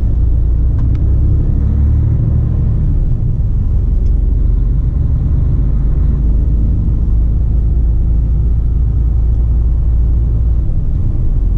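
Mercedes-Benz lorry heard from inside the cab while driving slowly: a steady low engine and road rumble, easing slightly near the end.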